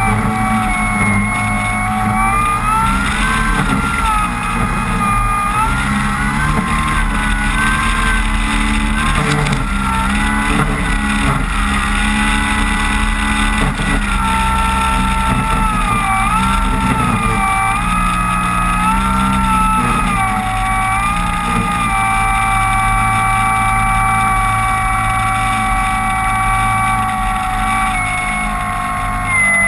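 Electric motor and propeller of a radio-controlled Cessna 185 floatplane running at taxi power, its whine stepping up and down in pitch as the throttle is changed. Strong wind rumbles on the onboard camera's microphone.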